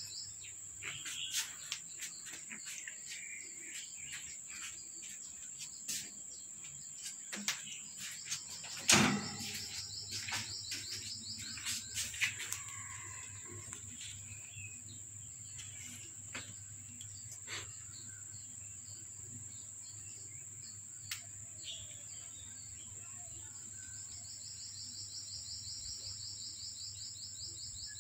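Outdoor insect noise: a steady high-pitched drone, with a fast pulsing trill that comes and goes three times, and a few bird chirps. Scattered light clicks through it and one sharp knock about nine seconds in, the loudest sound.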